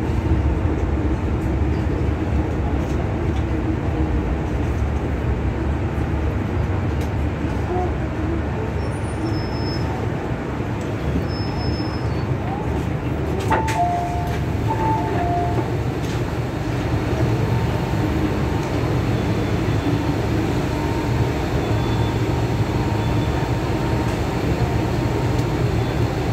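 Carriage noise inside an MTR M-Train electric multiple unit: a steady low rumble and hum as the train runs and then stands at a station. About halfway through comes a sharp click, then a short two-note chime, where the doors open.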